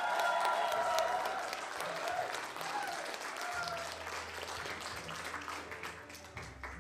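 Wedding guests applauding and cheering, with a few voices calling out in the first few seconds; the clapping thins out and fades toward the end.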